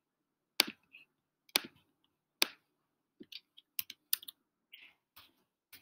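Clicking and typing at a computer: three sharp clicks about a second apart, then a run of quicker, lighter keystrokes on a computer keyboard as an equation is typed in.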